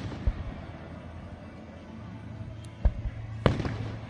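Fireworks going off: a small bang near the start, then two sharp bangs about three and three and a half seconds in, the second trailing off, over a low steady hum.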